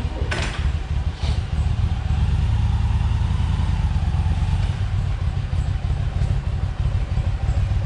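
Large cruiser motorcycle engine idling with a low, even pulse, a brief clack just after the start.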